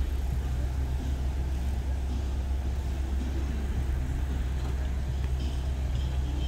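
Road traffic: cars creeping along slowly, heard as a steady low rumble with a faint engine hum.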